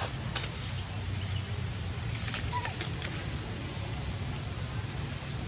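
Outdoor ambience: a steady high whine and low hum, with a few small clicks and rustles and one short faint squeak about two and a half seconds in.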